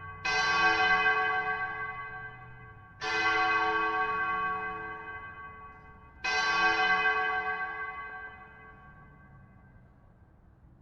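A bell struck three times, about three seconds apart. Each stroke rings on and slowly fades, and the last one dies away near the end.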